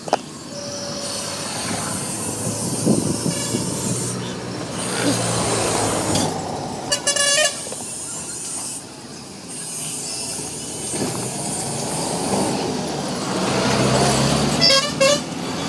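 Street traffic passing, with a vehicle horn honking briefly about seven seconds in and again near the end.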